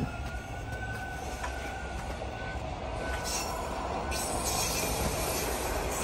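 Toronto subway train running past on an open stretch of track. A thin, steady high wheel squeal sounds for the first couple of seconds over the rolling rumble, and the rumble grows louder toward the end.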